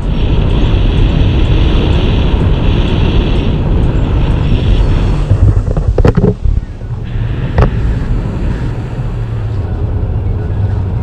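Wind buffeting an action camera's microphone in tandem paragliding flight: a loud, steady rumbling rush, with a couple of sharp knocks a little past halfway.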